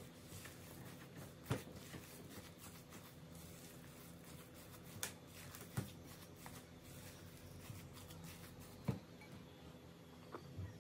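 Silicone spatula stirring moist grated zucchini in a glass bowl: faint soft scraping and squishing, with a few sharp taps of the spatula against the glass.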